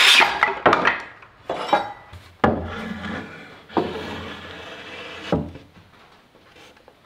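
A cordless circular saw finishing its cut through a board, then a string of hollow wooden knocks and clatter with some scraping as 2x4 lumber is handled and a cut cross-brace board is set against the wooden frame. The knocks fade out after about five seconds.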